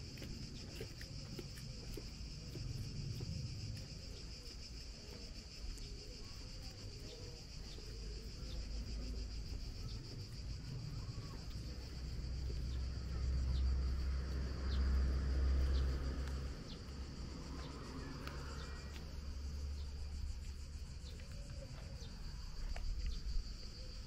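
Insects calling steadily, a high even tone, over a low rumble that swells about twelve to sixteen seconds in.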